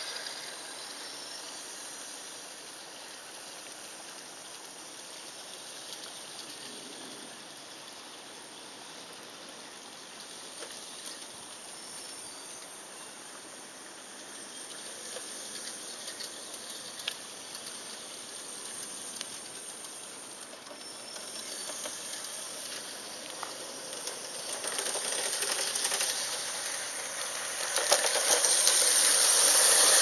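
G-scale 45-ton side-rod diesel model locomotive running on garden-railway track: a faint, hissy running sound with scattered light clicks. It grows much louder near the end as the locomotive and its log car come past close by.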